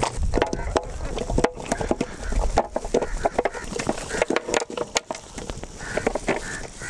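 Raw mutton pieces being tipped from a steel bowl into a large metal pan: an irregular run of wet slaps and knocks against the metal.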